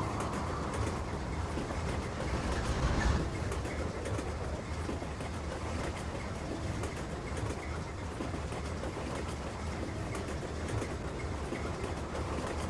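Train running on the rails: a steady low rumble that swells a little about three seconds in.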